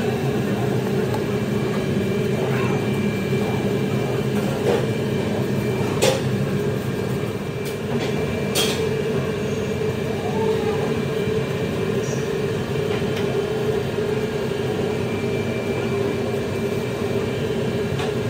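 Steady machinery hum with a few short clicks and knocks, two sharper ones about six and eight and a half seconds in.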